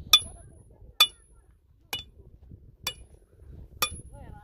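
Hammer striking metal in a steady rhythm, five blows about a second apart, each with a short bright metallic ring.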